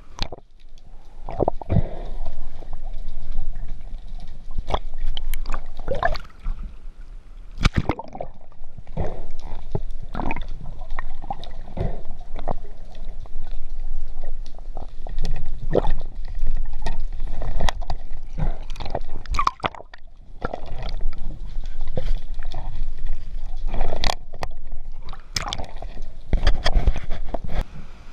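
Underwater water noise, gurgling and sloshing against the camera's waterproof housing, with many short knocks and clicks scattered throughout.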